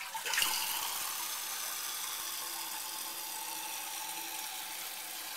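Fluidmaster 400 fill valve hissing steadily as an American Standard Cadet toilet tank refills after a flush.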